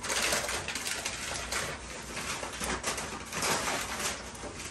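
White wrapping paper rustling and crinkling as it is unfolded and pulled off an item by hand, in a run of quick, uneven crackles.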